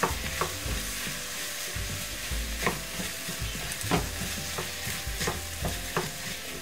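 Wooden spoon stirring soybean paste and chili paste into onion and zucchini frying in perilla oil in a stainless steel pan: a steady sizzle with occasional short knocks and scrapes of the spoon against the pan.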